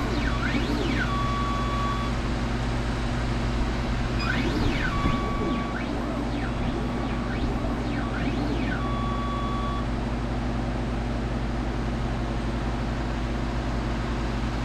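Engraving machine for chimarrão gourds moving into position. Three short spells of whining rise and fall in pitch, some holding a steady tone in between, over a steady low hum.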